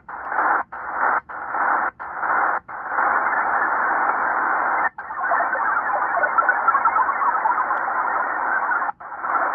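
Shortwave static from a Tecsun PL-330 receiver in upper-sideband mode being tuned across the 40-metre band. The hiss is cut by brief silent gaps as the radio mutes at each tuning step: four quick ones in the first three seconds, then one near five seconds and another near nine.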